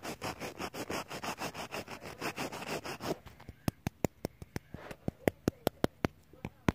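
Rapid, close tapping over a rustling, scratchy noise for about three seconds, then a run of sharp, separate clicking taps, two or three a second.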